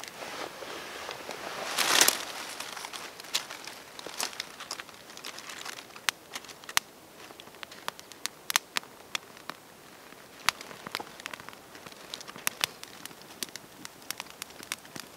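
Small fire catching in dry twigs and dead leaves, with sharp irregular crackles and pops and the dry leaves crinkling as the bundle is handled. A short loud scrape sounds about two seconds in.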